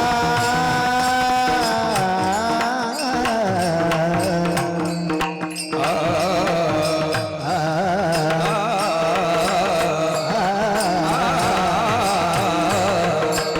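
A male kirtan singer in a high voice, holding long notes of a devotional abhang, with a fast wavering, ornamented pitch from about halfway through, over a steady instrumental drone and light regular percussion.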